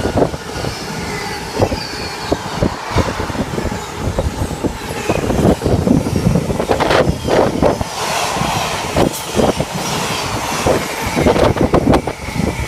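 A freight train hauled by a Class 66 diesel locomotive passing through without stopping: a long string of wagons rolling by, their wheels clattering irregularly over the rail joints.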